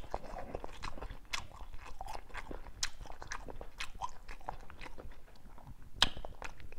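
Close-miked chewing: a man eating cooked cucumber stuffed with minced pork, with soft, wet mouth clicks and smacks at an uneven pace. A sharper click comes about six seconds in.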